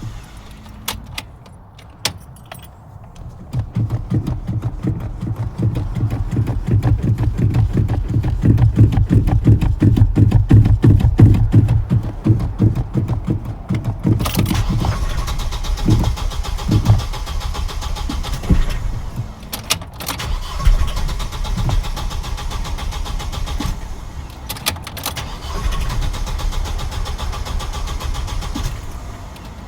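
A car engine that is hard to start. After a few clicks, the starter cranks it over in a fast, even rhythm for about ten seconds. Then it catches and runs unevenly, with dips and stumbles, as if it is struggling to stay running.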